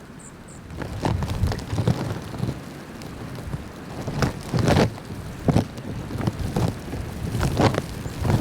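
Blizzard wind gusting against the microphone, coming in irregular low rumbling buffets from about a second in.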